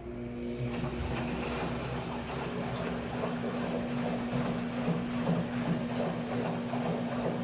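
KMC washing machine running: a steady motor hum that comes on right at the start, over an uneven rushing noise from the drum.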